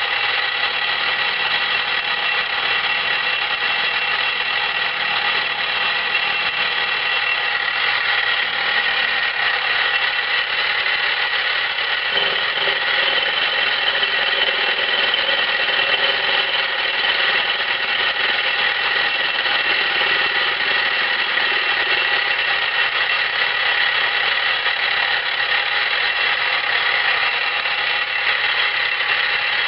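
A milling machine running, its endmill cutting a pocket into a steel replacement gib in shallow passes: a steady machine whine with a high tone over the cutting noise. About twelve seconds in, the cutting noise grows heavier in the middle range.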